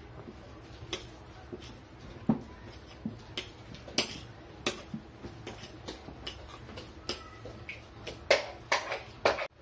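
Metal spoon and fork scraping and clinking against a glass mixing bowl as thick oat-and-banana dough is stirred: irregular taps and scrapes, with a few sharper clicks near the end.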